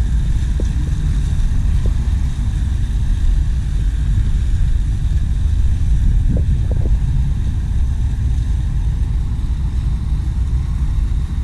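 Infinity water fountain's water rushing steadily: a loud, even noise, heaviest in the low end.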